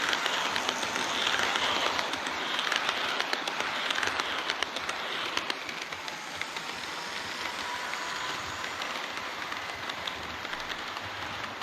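HO-scale model train running along the track, a dense rolling rattle of wheels clicking over rail joints; a little quieter from about five seconds in.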